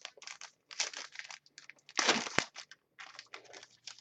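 Crinkling and rustling of trading card pack wrappers and cards being handled: a string of short crackles, the loudest about two seconds in.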